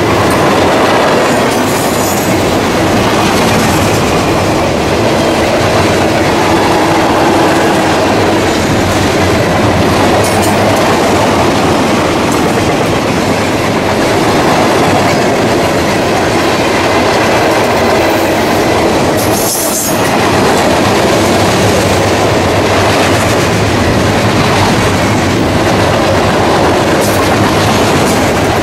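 Mixed freight train of tank cars, boxcars and covered hoppers rolling past at speed: a steady, loud rumble and clatter of steel wheels on the rails, with one brief high screech about two-thirds of the way through.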